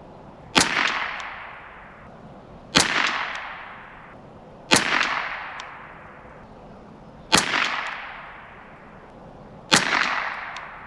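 Ruger 10/22 rifle firing .22 LR, five single aimed shots about two to two and a half seconds apart. Each is a sharp crack with a tail that dies away over about a second and a half.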